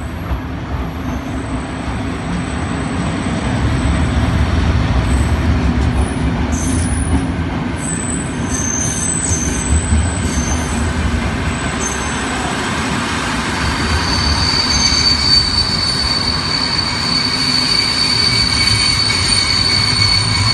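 Historic train hauled by an FS E.656 electric locomotive pulling into a station: a continuous low rumble of wheels on rail, with a high steady squeal from the wheels setting in about two-thirds of the way through as the train brakes to a stop.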